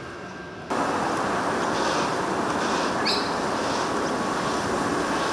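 Adelaide Metro 4000-class electric train fading away faintly, then steady wind noise on the microphone that cuts in abruptly under a second in.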